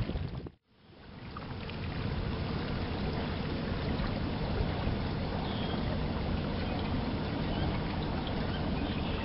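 Steady low rumble and hiss of a boat out on open water. It breaks off suddenly into near silence about half a second in and comes back within a second. A faint high chirp sounds about five and a half seconds in.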